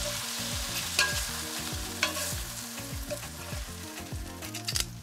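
Chicken breast cutlets sizzling in oil in a hot cast iron skillet, with sharp clicks of metal tongs against the pan about one and two seconds in as the pieces are lifted out. The sizzle eases off toward the end.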